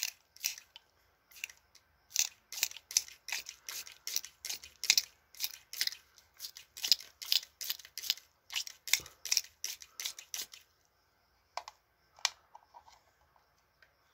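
Trigger spray bottle of an ear-wash kit pumped in quick squirts, about two to three a second, jetting a warm water and hydrogen peroxide mix into an ear to flush out impacted wax. The pumping stops about ten seconds in, with two single strokes after.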